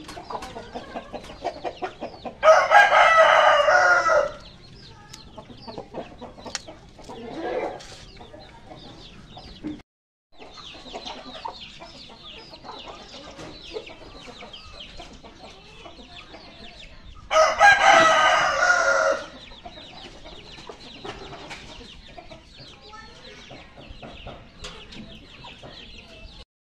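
Rooster crowing twice, each crow about two seconds long, the first a couple of seconds in and the second about two thirds of the way through.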